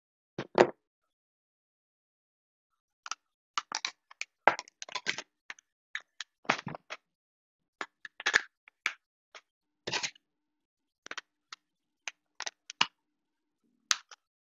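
Sparse, irregular clicks and taps of a computer keyboard being typed on in short spurts, starting a few seconds in.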